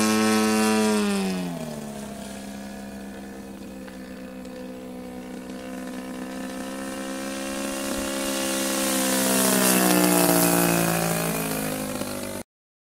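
Gasoline engine of a 42% scale Solution XX RC biplane in flight. Its note drops and fades as it flies away in the first two seconds, then grows louder as it comes back and passes close about ten seconds in, the pitch falling as it goes by. The sound cuts off abruptly near the end.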